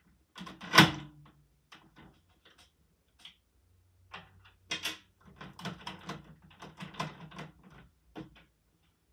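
Lego plastic mechanism of a candy machine clacking as its top slider is pushed: one loud clack about a second in, then a run of quick plastic clicks and rattles from about four to eight seconds as the change mechanism moves.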